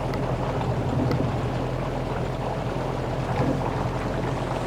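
Boat motor running steadily at low speed, a constant low hum with a haze of water and wind noise over it.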